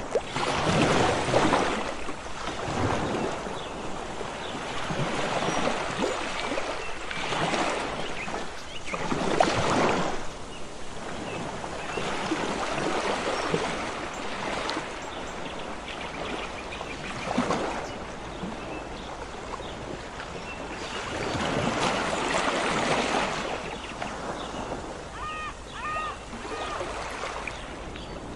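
Sea waves breaking and washing up on a beach, the surf swelling and falling away every few seconds. A few short high chirps come near the end.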